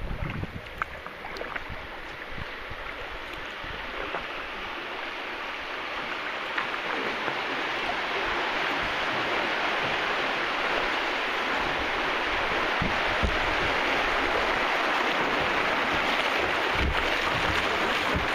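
Rushing river water around a moving kayak: a steady hiss that grows gradually louder, with a few faint knocks.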